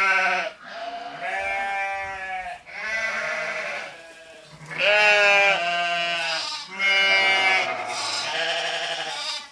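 A run of about six wavering, bleat-like calls, each a second or two long at a steady pitch, with short breaks between them.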